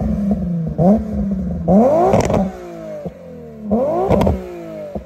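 Nissan 350Z's V6 exhaust being free-revved: a short throttle blip about a second in, then two bigger revs, each rising sharply in pitch and falling back to idle. The revs carry the 'trumpet sound' the owner dislikes.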